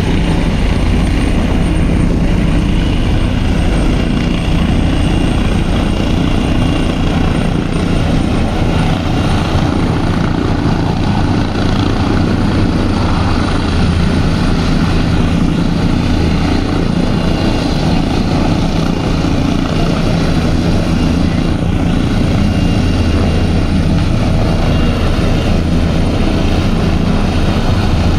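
Helicopters' rotors and turbine engines running loud and steady as one helicopter comes down to land beside another on the ground, its downwash raising dust.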